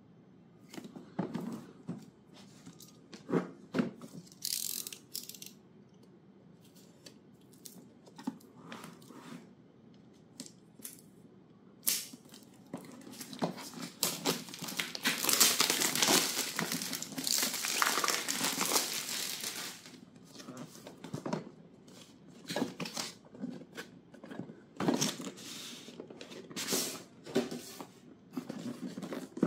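Packaging being handled and opened: scattered rustles and clicks, with a longer stretch of crinkling, tearing plastic wrap about halfway through.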